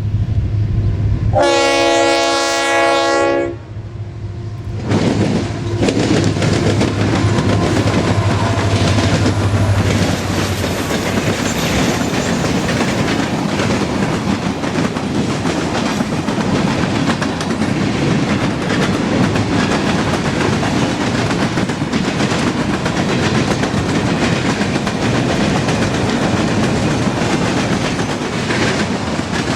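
Diesel freight locomotive sounding one horn blast of about two seconds near the start, then the train passing close by: the engine drone and then the steady clatter and rumble of freight cars over the rails.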